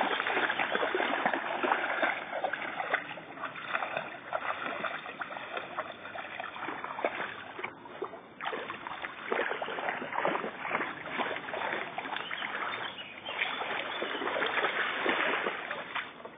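Shallow water splashing and sloshing as dogs wade through it: a dense run of small splashes with a short lull about halfway.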